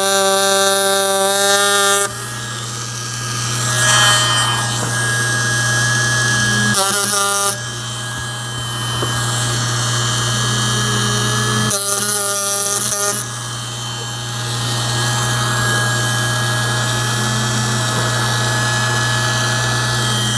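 Ryobi 4-volt cordless power carver running with its V chisel, cutting into pine with a steady buzz. Three times, at the start, about seven seconds in and about twelve seconds in, it briefly runs louder with a higher whine before settling back.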